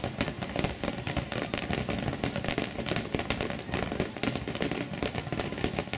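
Fireworks going off in rapid, dense succession: many overlapping bangs and crackles with no pause.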